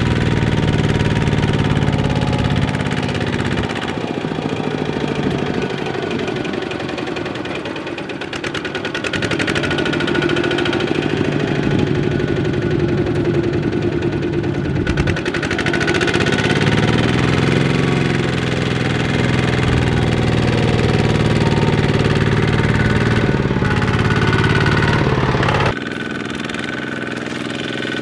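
Single-cylinder diesel engine of a Kubota two-wheel walking tractor running hard under load with a knocking beat as it churns through mud, its speed sagging and picking up again several times. Near the end the sound drops suddenly to a quieter run of the same kind of engine.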